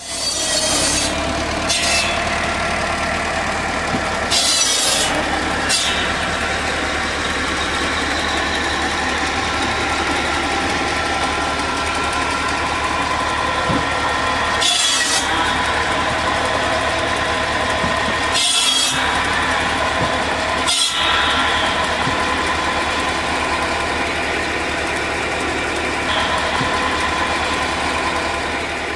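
A McCormick D430 tractor's diesel engine runs steadily, driving an 80 cm circular saw through its power take-off. The spinning blade hums, and about seven times it bites through a log with a short, harsh cutting burst.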